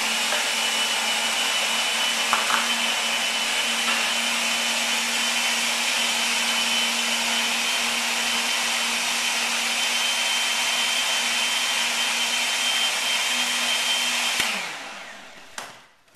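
Countertop blender motor running steadily at full speed, blending a thick vegetable smoothie. Near the end it is switched off and winds down, its hum falling in pitch before it stops.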